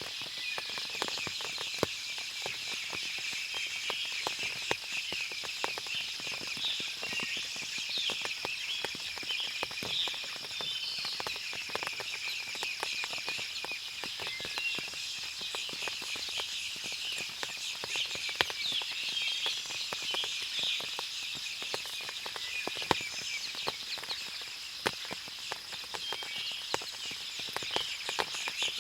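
Forest ambience after rain: many birds chirping and calling over a steady high-pitched buzz, with scattered sharp clicks throughout and a few louder single clicks.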